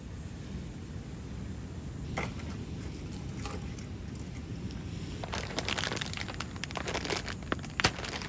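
Plastic snack bag crinkling as it is handled and pulled open: a dense crackle that starts about five seconds in, with one sharp snap near the end. Before that there is only a low steady background hum with a couple of light clicks.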